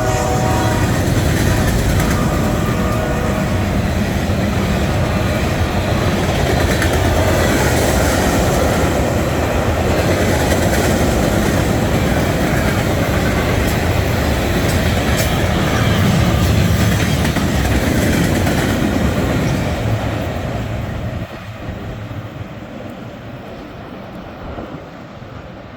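CSX freight train led by SD70MAC locomotives passing close by: a loud steady rumble of wheels and cars with clacking over the rail joints. The tail of a horn blast fades out right at the start, and the rumble drops off sharply about 21 seconds in.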